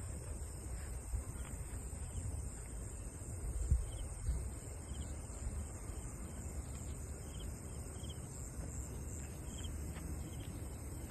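Crickets and other insects chirping steadily, with a run of short repeated chirps through the second half, over a low rumble and one bump a little under four seconds in.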